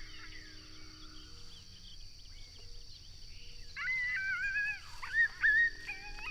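A group of coyotes howling and yipping, several wavering voices overlapping. The chorus is faint at first and swells about four seconds in.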